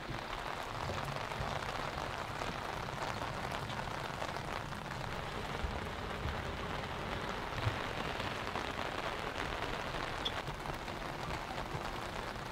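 Light rain falling steadily on a sailboat's deck and rigging and on the calm water around it.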